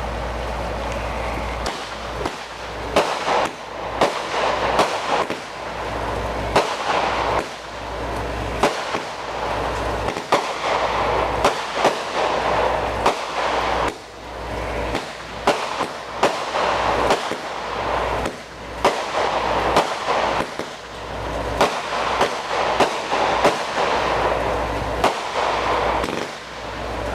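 Consumer aerial fireworks going off in quick succession: a string of sharp bangs, one to three a second, over a steady hiss.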